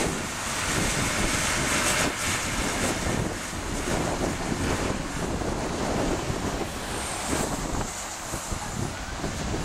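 Caterpillar 950K wheel loader running as it drives across loose sand, with wind buffeting the microphone.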